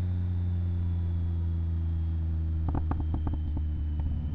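Motorcycle engine running at steady revs in a low gear, engine braking down a steep grade. A few quick knocks come about three seconds in.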